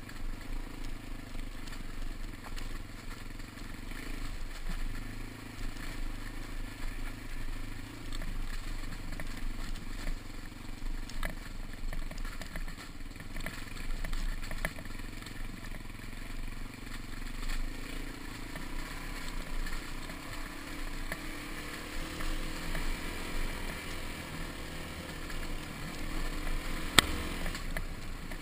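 Dirt bike engine running while riding over a rough dirt track, with rattling from the bike and a rise in engine pitch in the second half. A single sharp knock near the end.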